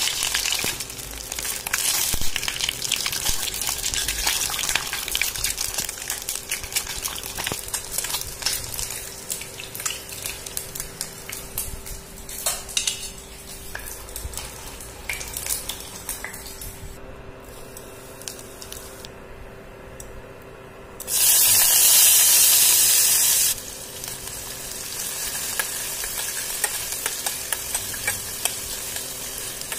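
Boiled eggs crackling and spitting as they fry in hot mustard oil in a steel pan, with a metal spoon clinking as they are turned. About two-thirds of the way through, a loud burst of sizzling lasts a couple of seconds. Then chopped onions fry with a steady sizzle while a metal spoon stirs them against the pan.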